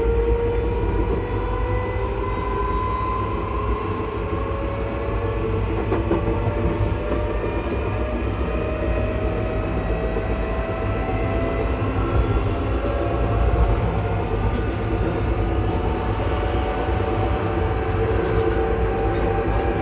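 Class 334 electric multiple unit's traction motors whining in several slowly rising tones as the train gathers speed, over a steady rumble of wheels on the rails, heard at the gangway between carriages.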